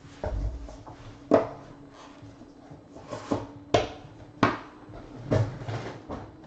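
Handling noise on a tabletop: several sharp clacks and a few dull thumps as cards and a black hinged presentation box with a card inside are moved and the box lid is shut.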